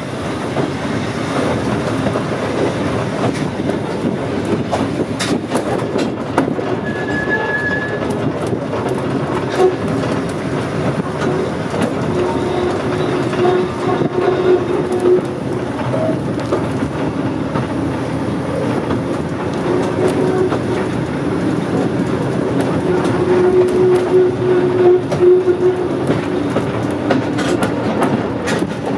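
A Volk's Electric Railway car running along its narrow-gauge track, heard from aboard: a steady rumble of wheels on rail with scattered clicks, and a low held whine that comes and goes about halfway through and again near the end.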